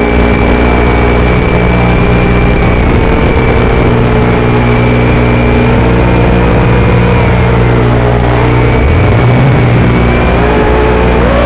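Loud electrical buzz and whine on the audio channel of a Wizard X220 quadcopter's analog FPV video link: a steady hum with many overtones, and higher tones that waver up and down. The noise is the sign of the video transmitter sending mono audio to a FatShark receiver that expects stereo.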